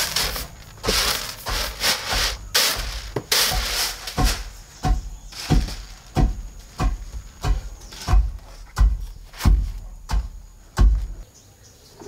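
Woven bamboo winnowing tray being tossed and shaken in a steady rhythm, the pounded coffee beans and husks rushing and rustling across the weave and landing with a soft thud about every two-thirds of a second, to separate the husks from the beans. It stops about eleven seconds in.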